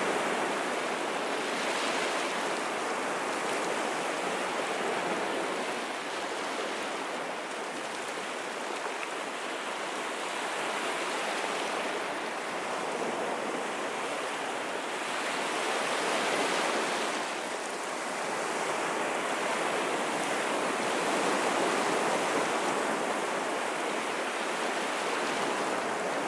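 Steady rushing water that swells and eases slowly every few seconds.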